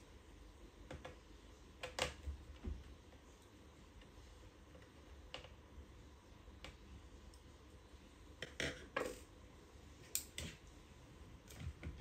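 Light, scattered clicks and taps of a small screwdriver working the screws that hold a laptop battery, and the battery's plastic knocking on the chassis as it is handled, with the sharpest clicks about two seconds in and again between eight and ten seconds in.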